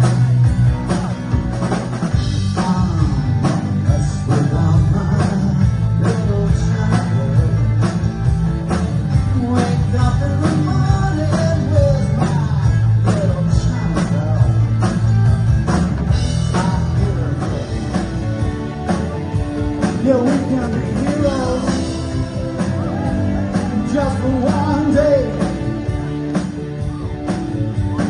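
Live rock band playing a song with a male lead singer over electric guitars, bass and a drum kit, recorded from the audience.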